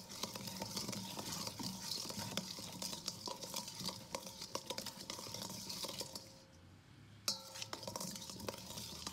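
Whole grapes in an oil-and-vinegar marinade being stirred by hand in a stainless steel bowl: dense, irregular wet clicking of grapes against each other and the metal. It eases off briefly near six seconds, then a sharper knock sets the bowl ringing briefly before the stirring goes on.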